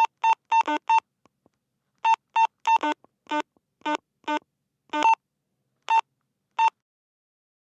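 A handheld walkie-talkie radio's push-to-talk and channel-change beeps: about fifteen short electronic beeps in irregular clusters. Most are a single high tone, and some step down to a lower second tone. The beeps stop a little before the end.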